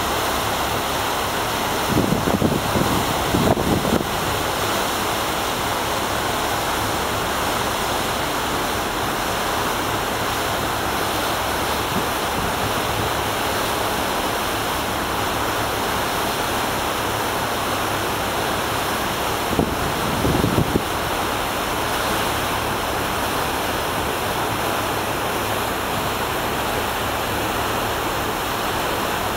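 Steady rushing of a passenger ship's wake churning behind the stern, mixed with wind on the microphone. Louder gusts of wind buffet the microphone about two to four seconds in and again around twenty seconds in.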